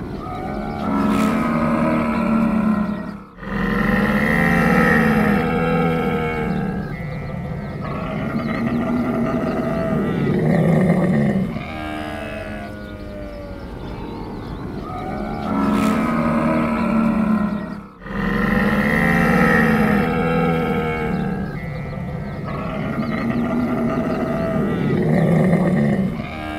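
Camel groaning and moaning: long, low, rough calls one after another, with two short breaks. The same stretch of groans repeats about halfway through, as a looped recording.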